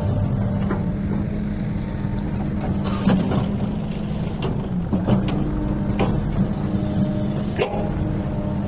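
XCMG excavator's diesel engine running steadily under load, with several sharp knocks scattered through the working.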